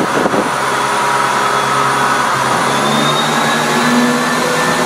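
Diesel multiple unit pulling away from the platform, its underfloor diesel engines running under power with a steady whine; the engine note rises about three seconds in as the train gathers speed.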